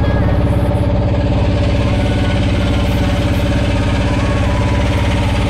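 Boat engine running steadily, loud, with an even rapid pulse.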